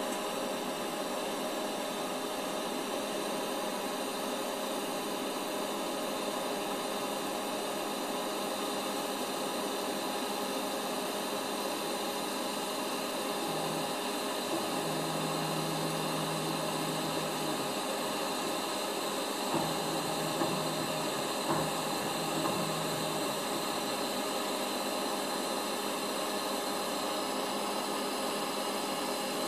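DC TIG welding arc laying a fillet bead on carbon steel, powered by a Vector Welding TW230 inverter TIG welder: a steady, even hiss. A faint low hum comes and goes around the middle.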